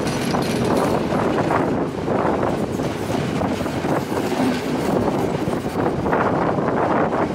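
Passenger coaches of an express train rolling past close by: a continuous rumble of wheels on the track with repeated clacks as the bogies run over the rail joints.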